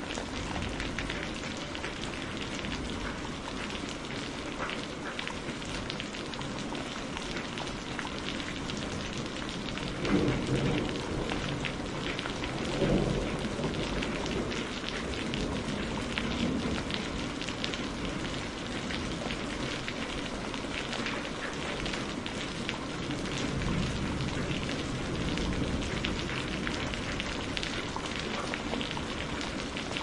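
Heavy rain falling steadily, with two short low rumbles of thunder about ten and thirteen seconds in.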